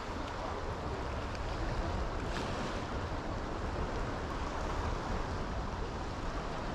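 Steady wind and the rush of a fast-moving tidal current, an even noise with a low rumble.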